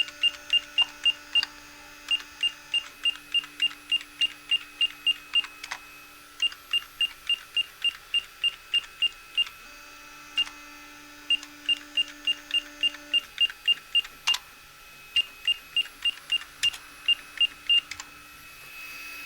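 Short high beeps from a ZX Spectrum-compatible computer (a Harlequin 128K kit build), one for each key pressed during a keyboard test program. They come in quick runs of about three a second, with brief pauses between runs.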